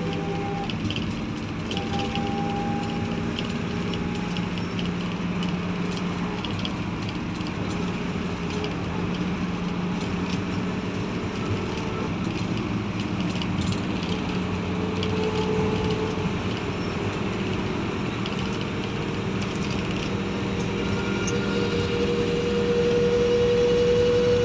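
Steady city traffic noise: vehicle engines running with a low hum, and a higher engine tone rising near the end.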